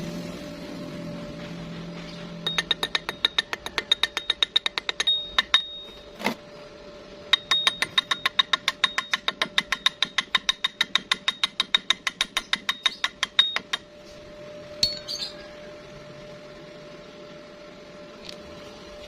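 Rapid light metal-on-metal taps, about seven a second, in two runs of several seconds each, every tap ringing briefly, as from a hammer rapping on steel; a faint steady hum underneath.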